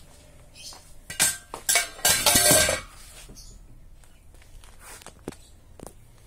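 Metal clattering and clanking: two sharp clanks about a second in, then a loud rattling clatter with some ringing metal lasting under a second, followed by a few faint knocks.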